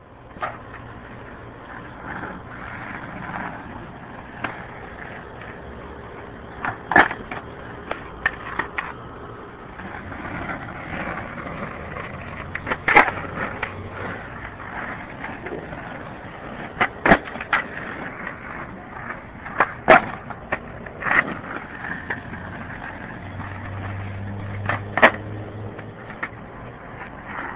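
Skateboard wheels rolling on rough asphalt, with several sharp clacks of the board hitting the pavement, spaced a few seconds apart.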